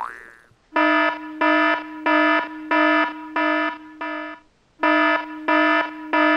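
Alarm buzzer sound effect: a steady buzzing tone beeping six times, about one and a half beeps a second, then pausing briefly and starting again.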